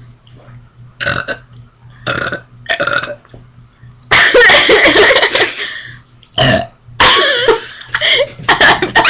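A young woman's burps, brought on by gulping carbonated ginger ale: three short burps in the first three seconds, then much louder, longer ones from about four seconds in.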